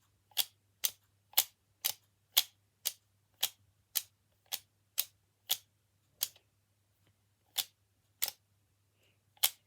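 A hand-worked fidget toy clicking, sharp and regular at about two clicks a second, with the clicks spacing out in the second half.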